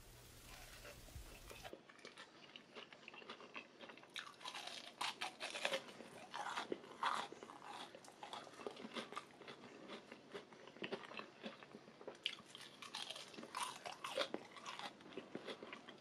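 Someone biting and chewing a crisp breadcrumb-coated fried potato cutlet: crunches start about two seconds in and come in bunches.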